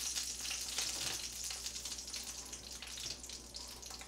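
Frozen dumplings sizzling in an oiled frying pan: a steady high hiss that fades gradually, with a few faint clicks.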